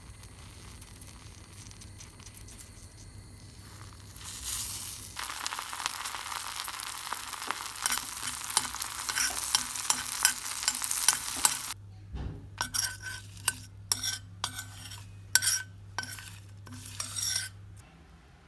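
Butter sizzling and crackling in a pan as havaciva (alkanet root) fries in it, starting a few seconds in after a faint low hum. About two-thirds of the way through, the steady sizzle gives way to a string of short stirring strokes in the pan, which stop shortly before the end.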